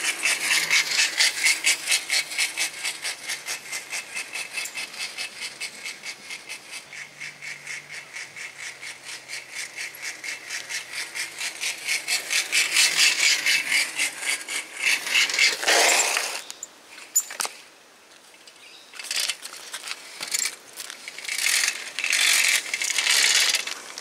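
A 1981 Mongoose Motomag BMX rattling and clicking in an even, rapid rhythm as it is ridden, growing louder as it approaches. In the second half the clicking gives way to scattered, irregular clatters.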